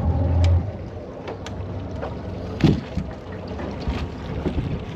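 Low wind rumble on the microphone for the first half second, then a few light knocks and one louder thump about two and a half seconds in: footsteps and gear handling on a small aluminium boat.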